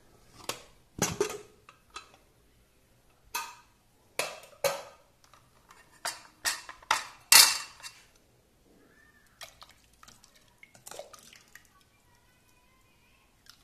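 A string of sharp metal clanks and knocks from a stainless steel pressure cooker, its lid being taken off and a metal ladle going into the pot, about a dozen in the first eight seconds with the loudest about seven seconds in. Fainter clinks and scrapes of the ladle in the soup follow.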